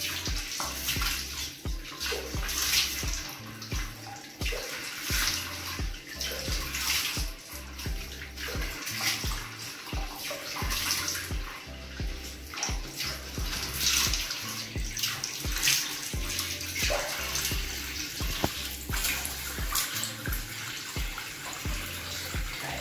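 Bathroom sink tap running in a steady stream, with uneven splashing as hands cup the water and rinse a face.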